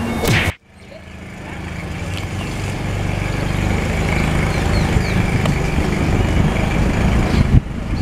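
Motor scooter engine running steadily under way, with wind and road noise. It fades in after a sudden cut about half a second in.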